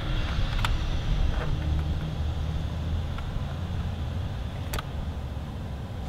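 A few light clicks as a wire and a blue crimp-on butt connector are handled, over a steady low rumble.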